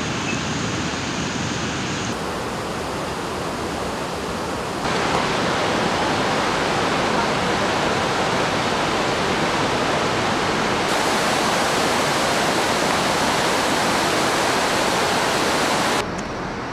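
Steady rushing roar of a flooded mountain river. It jumps louder about five seconds in and drops away just before the end as the shots change.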